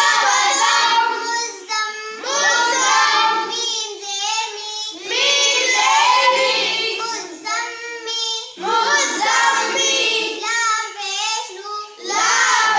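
A young girl's voice chanting Arabic lesson words in a sing-song recitation. The words carry double tashdeed, stressed doubled consonants. It comes in about five phrases of one to three seconds each, with short breaks between.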